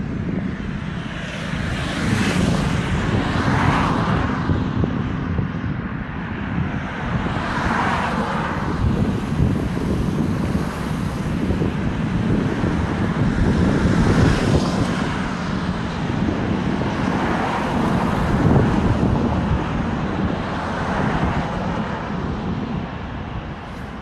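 Road traffic: cars driving past one after another, tyre and engine noise swelling and fading as each goes by, over a steady low hum of traffic.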